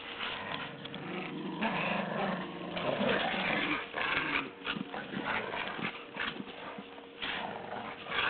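Rottweiler and Staffordshire bull terrier play-growling in rough, irregular bursts while they tug on a rope toy and mouth at each other.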